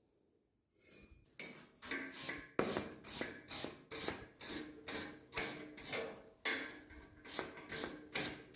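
Hand scraping strokes on steel, about three a second, each one swelling and fading, starting about a second in.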